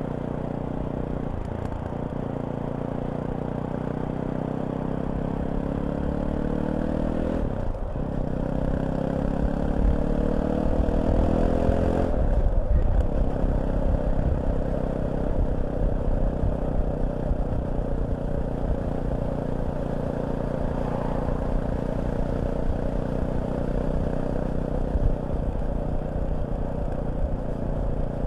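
Fantic Caballero 500's single-cylinder four-stroke engine pulling hard as the motorcycle accelerates. The engine note rises, drops with an upshift about eight seconds in, rises again and drops with a second upshift about twelve seconds in, then holds a steady cruise.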